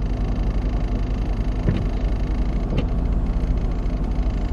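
A parked car's steady drone heard from inside the cabin: a constant hum with a pulsing low rumble beneath it. The owner can't account for the noise and thinks it comes from the car standing on a slope.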